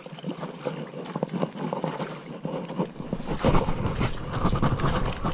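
Crackle and rustle of leaves and twigs, with the knocks of handled fishing gear, as an angler scrambles through shoreline brush to land a hooked fish. Rumbling handling noise on the camera's microphone starts about three seconds in.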